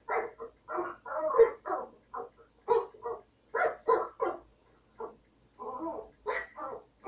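Small dog barking over and over in short, sharp barks, roughly three a second, some coming in quick runs.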